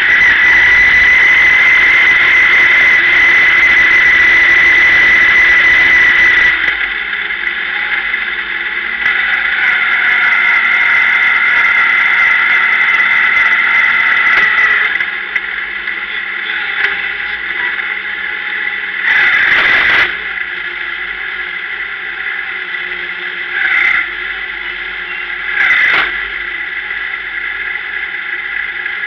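Dirt-track sportsman race car's engine running at low speed, heard from an in-car camera as a loud, harsh high-pitched whine. It drops in level about six seconds in and again about halfway through. Three short throttle blips come in the second half.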